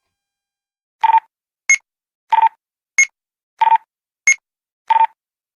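Eight short electronic beeps starting about a second in, alternating between a lower and a higher tone, about one and a half beeps a second.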